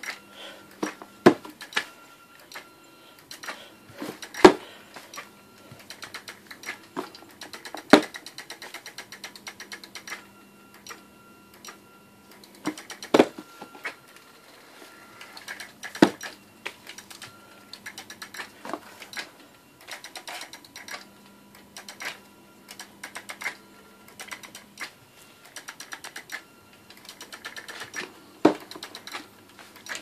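The homemade robot vacuum's drive motors and gearing starting and stopping in short runs of rapid clicking, with a faint hum that comes and goes. Irregular sharp knocks are mixed in, the loudest about four, eight, thirteen and sixteen seconds in.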